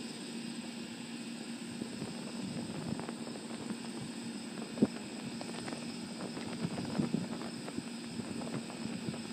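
Burning Lego minifigure's plastic crackling and sizzling with small irregular pops, one sharper pop about five seconds in, over a steady low hum.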